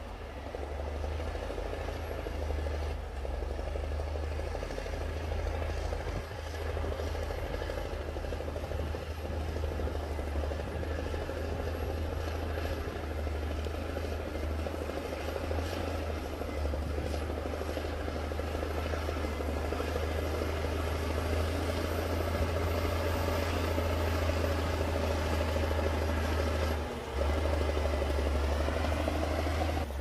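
Bulldozer's diesel engine running steadily with a deep rumble, dipping briefly near the end.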